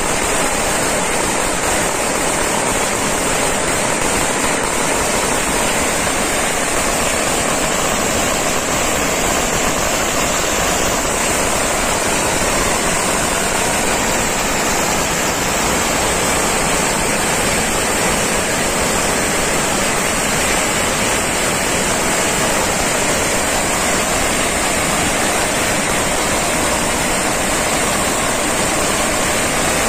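A long string of firecrackers (a Surinamese pagara) burning down on the ground: a continuous, dense rattle of rapid bangs that keeps the same loudness throughout.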